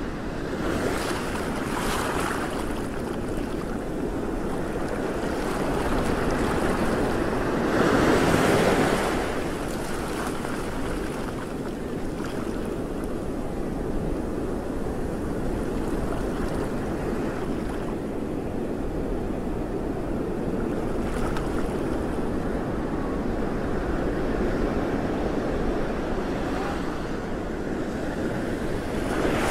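Sea waves washing and wind rushing over the microphone, a steady noisy wash that swells louder about eight seconds in.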